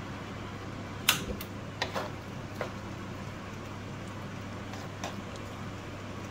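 Wooden spatula stirring chicken and tomato pieces in a nonstick wok, with a few sharp knocks of the spatula against the pan, the loudest about a second in, over a steady hum.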